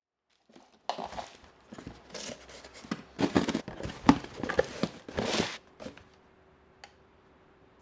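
A cardboard shipping box opened by hand: flaps pulled back and crumpled packing paper handled, in irregular rustling, scraping and crinkling strokes that stop about six seconds in.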